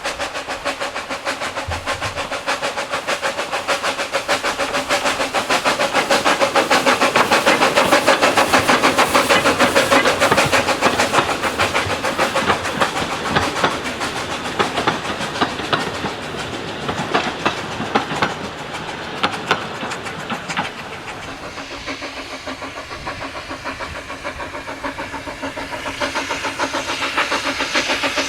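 A train running with a quick, even beat over a steady hiss. It grows louder to a peak about a third of the way in, then fades away.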